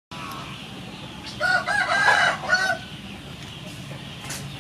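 A rooster crowing once, a pitched call of several linked syllables lasting about a second and a half.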